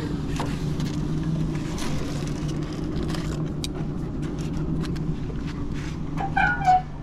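A steady low machine hum, with light clicks and rustles of metal tongs and aluminium foil as fish is lifted off a smoker grate onto a cutting board. A brief louder sound comes near the end.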